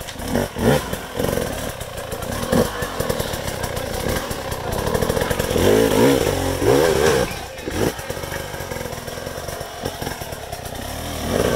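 Dirt bike engine revved up and down in repeated blips as the rider works the bike up a rock step, the pitch rising and falling, loudest about six to seven seconds in.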